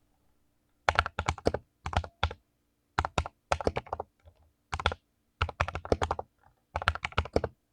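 Mechanical keyboard with clicky blue switches being typed on: quick runs of sharp keystroke clicks in bursts of about half a second to a second, with short pauses between bursts.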